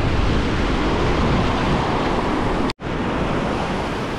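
Surf washing and breaking in the shallows, with wind rumbling on the microphone; the sound drops out for an instant nearly three seconds in.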